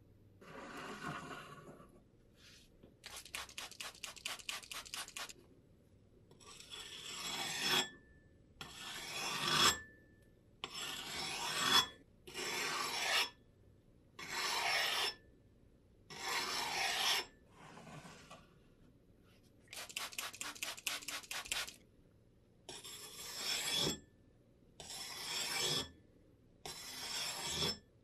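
Steel axe blade edge being sharpened on a handheld sharpening stone: about a dozen rasping strokes of about a second each, with two quick runs of fast, short strokes a few seconds in and again near the middle.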